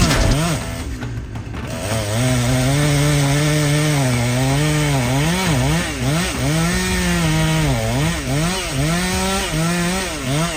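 Two-stroke chainsaw engine running at high revs, its pitch dipping and rising again and again as the throttle is worked.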